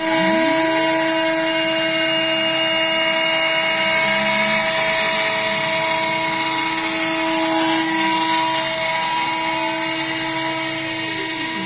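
CNC router spindle running with a steady whine and a dense hiss as it cuts a loudspeaker front panel. Gliding motor tones rise just after the start and fall near the end as the machine's axes speed up and slow down.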